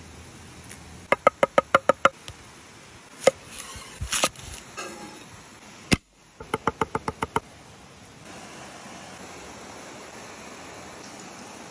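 Knife chopping fresh herbs on a wooden cutting board: two quick runs of about eight chops each, with a few louder single knocks between them. A steady rush of stream water runs underneath and is all that is left near the end.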